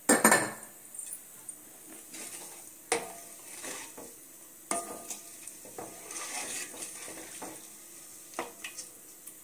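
A wooden spatula stirring thin gravy in a metal pot, scraping along the pot and knocking against its side now and then, with the loudest knock right at the start.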